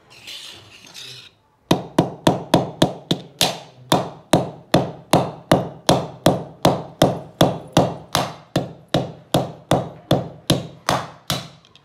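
A hammer striking a steel ball-bearing drawer slide rail over and over, about three blows a second with a short metallic ring after each, starting about two seconds in. The rail is being hammered to knock its steel balls out.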